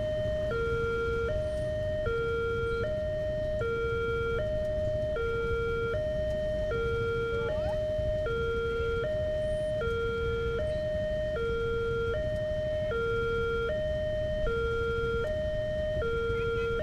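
Railway level-crossing gate siren sounding its warning that a train is approaching. It alternates steadily between two tones, high-low, each held about three-quarters of a second.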